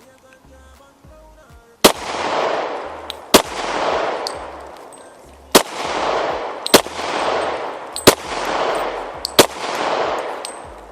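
Six shots from a Smith & Wesson .40 caliber pistol, fired singly at an uneven pace about one to two seconds apart. Each crack is followed by a long echo that fades over about a second.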